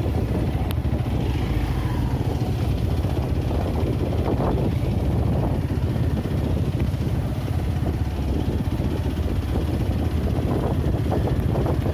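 Motorcycle engine running steadily under way, a continuous low rumble.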